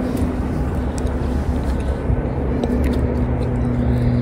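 A steady low motor hum with a constant drone.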